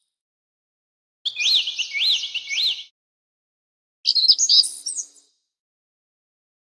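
Bird chirping sound effect: a run of four quick whistled chirps that each rise and fall, then after a short pause a second, shorter flurry of higher chirps.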